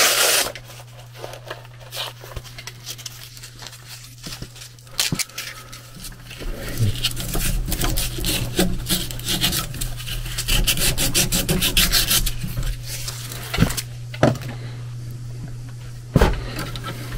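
Copper suction line being scrubbed by hand to clean its surface before mounting the new temperature sensor: a run of quick rasping rubbing strokes, heaviest in the middle, over a steady low hum. A few sharp clicks near the end.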